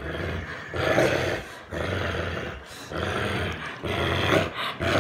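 American Bulldog growling through a tug-of-war over a stuffed toy monkey, a low rumbling growl. It comes in four or five stretches about a second long, each broken by a short pause.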